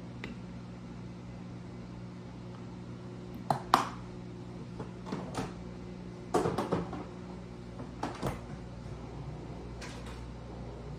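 Kitchen work while coffee is made: a steady electrical hum from an appliance under a handful of scattered knocks and clacks. The sharpest knocks come about three and a half seconds in, and a short cluster follows a few seconds later.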